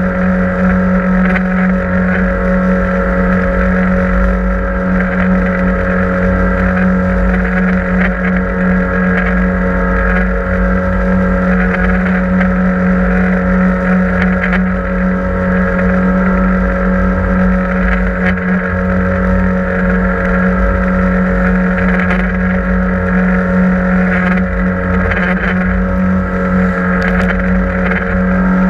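The engine of a 6.95 m aluminium catamaran fishing boat running on a sea trial, one constant engine note over a low rumble with no change in speed.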